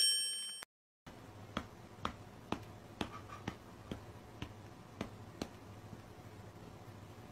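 A ringing chime dies away and cuts off in the first second. Then come faint, sharp clicks, evenly spaced at about two a second, about nine in all, over a low steady hum; they stop about halfway through.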